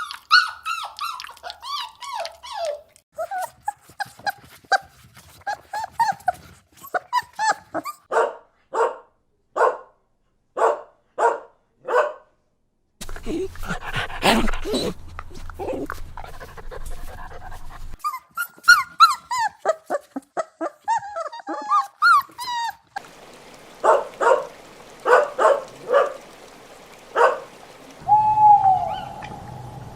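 Dogs whimpering, yelping and barking in a string of short separate clips: falling whines, then runs of quick clipped yips and barks. Near the end a steady hooting call begins.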